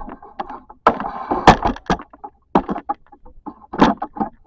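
Irregular knocks, clicks and clatter of containers and plastic fridge fittings being handled and moved, with a short scraping slide about a second in.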